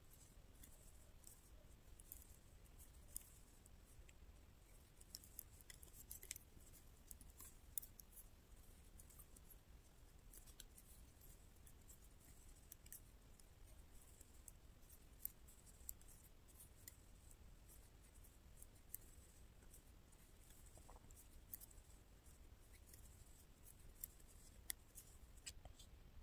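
Faint, irregular clicking of metal double-pointed knitting needles tapping against each other while stitches are knitted, over a low steady hum.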